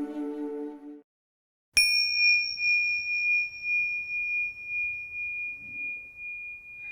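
Soft ambient music ends about a second in. After a brief pause, a single meditation chime is struck and rings one clear high tone that pulses gently as it sustains, then cuts off suddenly near the end.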